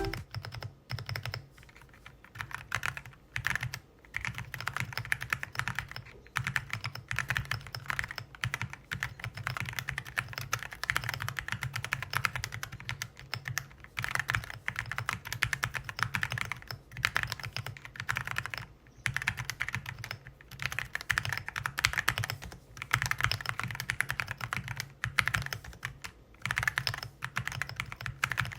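Mechanical keyboard fitted with RSA-profile keycaps being typed on: a quick, continuous run of key clacks with a few short pauses.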